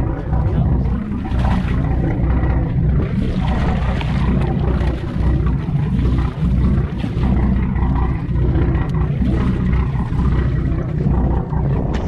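Loud, steady low rumble of wind buffeting the microphone over a charter fishing boat's engine.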